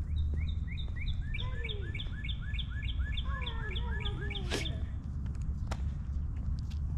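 A small bird calling a rapid run of evenly repeated chirps, about three a second, that stops about four and a half seconds in, over a steady low outdoor rumble. A sharp click comes as the chirping ends.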